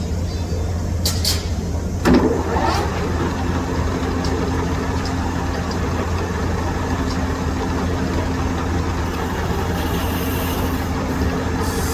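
Metal lathe running with a steady low motor hum. About two seconds in a sudden louder scrape, after which a steady low tone runs on.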